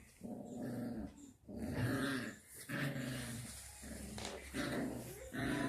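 Puppies growling in play: a run of short growls, one after another with brief gaps.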